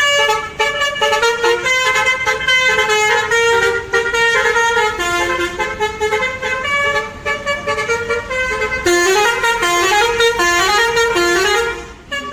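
Bus telolet horn of the basuri type playing a quick tune of many short notes, several horn tones sounding together, with a faster run near the end before it stops suddenly.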